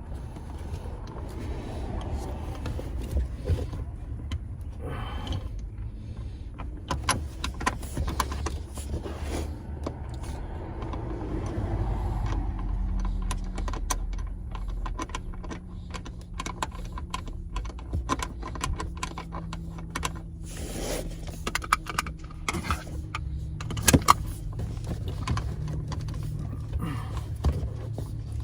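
Small metal parts and tools being handled: many scattered clicks, clinks and rattles over a low rumble, with a steady low hum setting in about twelve seconds in.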